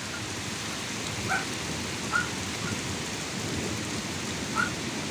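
Heavy rain falling steadily, with a low, continuous thunder rumble underneath that goes on without separate claps. Three short high chirps sound about a second in, after two seconds, and near the end.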